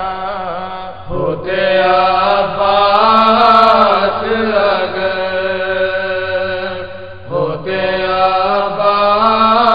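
A man chanting a nouha, an Urdu Shia mourning elegy, in long held melodic phrases with a wavering pitch, breaking briefly for breath about a second in and again near the end.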